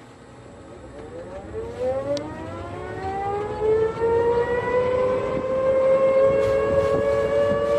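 Whine of an open-sided shuttle's drivetrain as it speeds up, rising steadily in pitch and growing louder, then levelling off as the shuttle reaches cruising speed.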